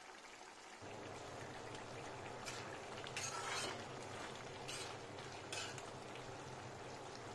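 Eel curry simmering faintly in a stainless-steel kadai, with a steady low hiss that comes up about a second in. A metal ladle stirs through it, scraping against the pan four times.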